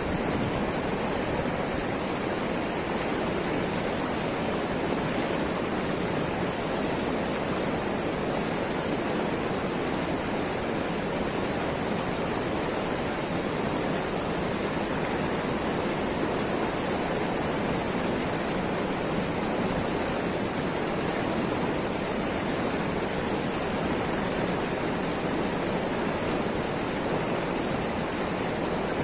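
Steady rush of fast-flowing river water at a weir: an even hiss that does not change.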